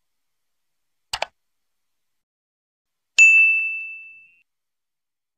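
A faint short click about a second in, then a single high, bell-like ding that rings out and fades away over about a second.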